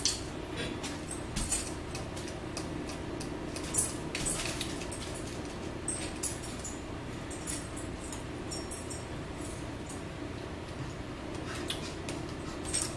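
Eating sounds at a table: scattered light clicks and taps of a fork on a plate, mixed with chewing and lip-smacking noises, over a steady low hum.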